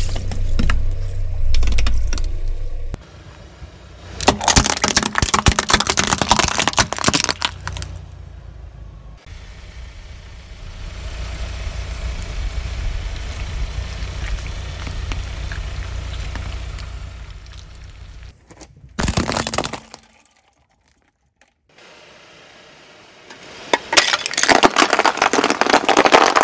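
Car tyre rolling over and crushing objects in a run of short clips: dense crackling and popping as metal-mesh pencil cups full of water beads give way, a longer smoother squelching stretch midway as filled rubber gloves are flattened, and another burst of crackling near the end. A low engine rumble runs under the first seconds.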